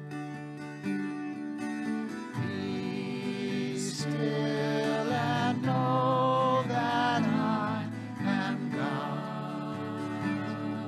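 Music: a voice singing a slow melody over acoustic guitar, the voice coming in about two seconds in.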